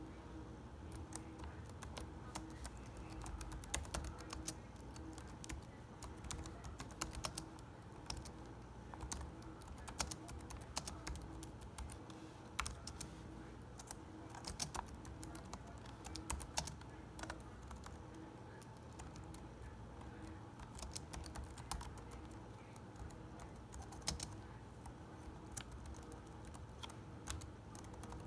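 Typing on a computer keyboard: a run of irregular key clicks with short pauses, over a faint steady hum.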